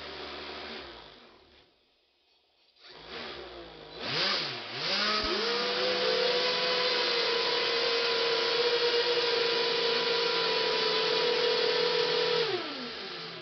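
Four electric motors spinning the RC flying car's propellers. A short run fades out, then after a brief pause the motors spin up with the pitch swinging up and down, hold a loud, steady whine with propeller hiss for about seven seconds, and wind down near the end. The car stays on the ground: the propellers lack the thrust to lift it.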